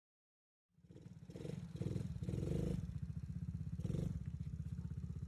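Small gas engine of a youth ATV running with a rapid putter, revved in several short surges, the strongest about two and a half seconds in and another near four seconds.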